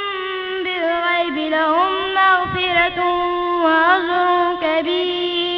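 A high voice chants Quranic recitation in long, drawn-out melodic phrases. The pitch bends and wavers through ornamented held notes, with brief breaks between phrases.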